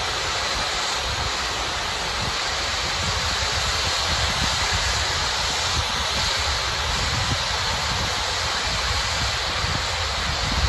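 Steady, loud hiss of gas venting at the Starbase orbital launch mount, with gusty wind rumbling on the microphone underneath.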